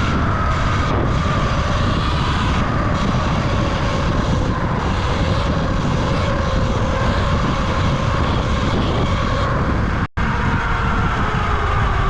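Falcon Pro 79 electric dirt bike being ridden: a motor whine that slowly falls in pitch over heavy wind rush on the microphone. The sound cuts out for a moment about ten seconds in.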